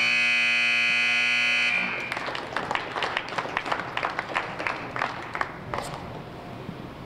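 Gym scoreboard buzzer sounds steadily for about two seconds as time runs out on the wrestling bout. It cuts off and is followed by a few seconds of scattered clapping from a small crowd.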